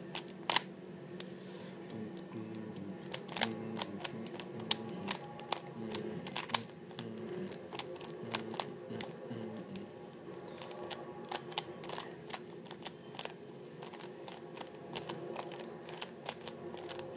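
Plastic Rubik's cube being turned by hand: quick, irregular clicks of the layers snapping into place, in bursts with short pauses, over a faint steady background hum.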